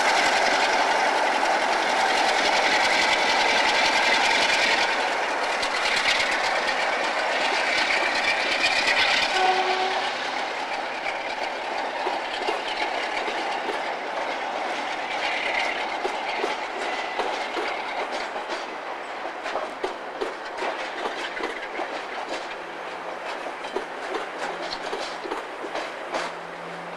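Class 47 diesel-electric locomotive passing close by and moving away. Engine and wheel noise is loud for about the first ten seconds, then fades into a run of wheel clicks over the rail joints. A short tone sounds about nine seconds in.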